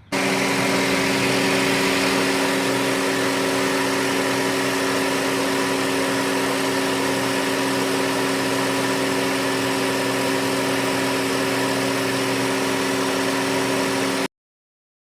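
2008 Honda Civic engine running at a steady idle, started up to test a newly installed AC compressor. The even running starts abruptly and cuts off abruptly about a second before the end.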